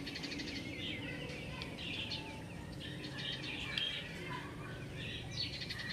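Small birds chirping repeatedly in short, quick calls over a low steady hum, with a faint click or two near the end from handling a small plastic device.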